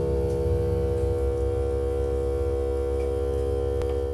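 A steady droning tone with many overtones over a low hum, holding unchanged throughout.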